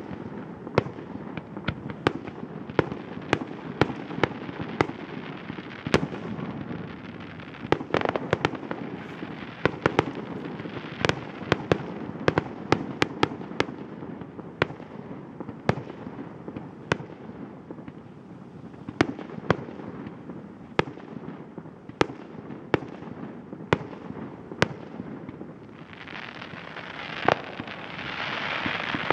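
Aerial fireworks display: a long irregular series of sharp bangs from bursting shells, several a second at times, over a continuous rolling rumble. Near the end a dense hiss sets in under the bangs.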